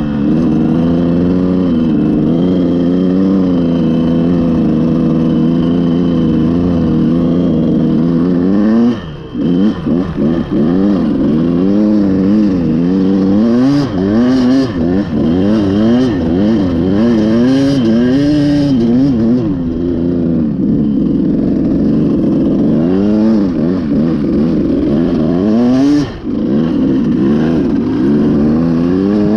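Dirt bike engine running at high revs, held steady for about eight seconds, then revving up and down over and over as the throttle is opened and rolled off, with two brief drops in revs.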